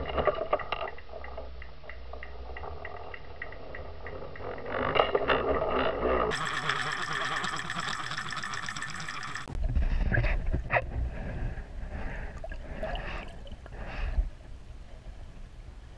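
Water rushing and gurgling past an underwater camera that is being pulled through the water behind a fishing lure. About ten seconds in, a heavier low rumble takes over, with a few sharp knocks.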